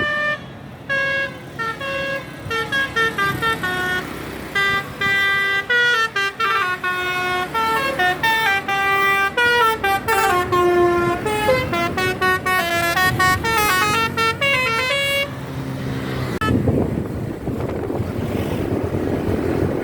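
Basuri 'telolet' multi-trumpet bus horn mounted on the roof, playing a tune of quickly changing notes that stops about fifteen seconds in. A rushing noise of wind and the moving bus follows.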